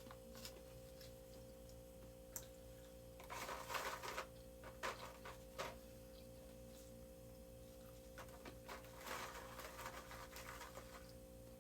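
Faint, crackly handling noises with a few clicks, in two short spells, over a steady low electrical hum.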